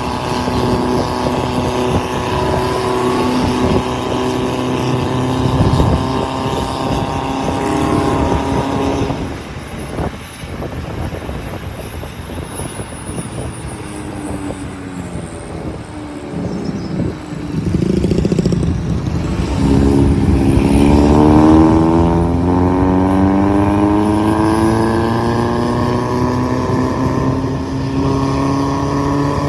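Diesel vehicle engine on a mountain road, running steadily, then falling quieter for several seconds before revving up with a rising pitch as it accelerates, and holding a higher steady note to the end.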